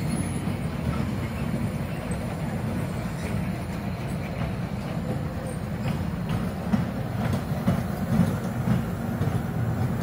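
Kiddie-ride miniature train running along its narrow-gauge track: a steady low rumble with a few faint ticks from the wheels on the rails.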